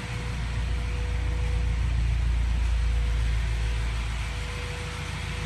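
A first-generation Honda CR-V's 2.0-litre four-cylinder engine running with the car up on jack stands, turning the drivetrain through a newly fitted 2011 Honda Element rear differential. It is a steady low rumble that swells a little in the middle and eases off near the end, with no clunks or grinding: the new differential works.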